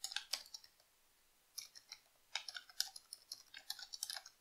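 Faint typing on a computer keyboard: runs of quick keystrokes, with a short pause about a second in.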